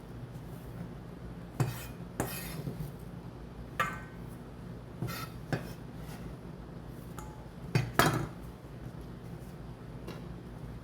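Kitchen utensils clinking and knocking against cookware: a scattering of separate strikes, one ringing briefly, with the loudest pair about eight seconds in, over a low steady hum.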